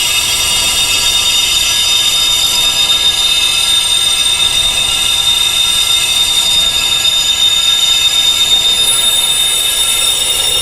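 Wind chimes tuned to tinnitus frequencies, blurred into a continuous wash of many high ringing tones over a steady hiss, with no single strikes standing out.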